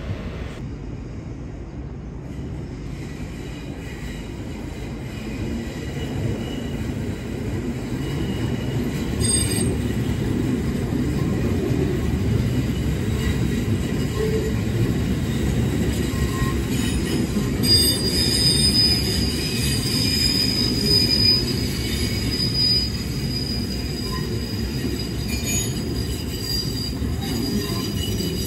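Auckland AM class electric multiple unit running past on the tracks: a steady rumble of wheels on rail that grows louder over the first ten seconds, with a high-pitched wheel squeal for several seconds past the middle.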